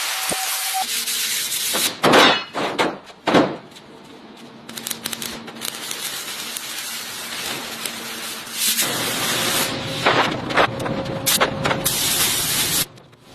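Hissing, scraping workshop tool noise in several short cut-together stretches, with two sudden loud bursts about two and three and a half seconds in.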